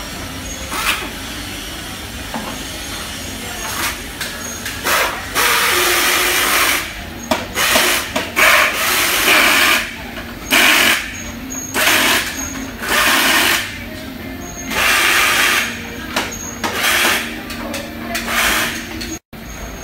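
Factory workshop noise: repeated bursts of hissing, each about half a second to a second long, come close together from about five seconds in, over a steady machinery hum.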